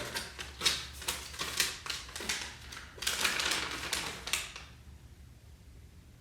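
Unboxing packaging being handled: a quick run of small clicks and taps, then a second or so of rustling.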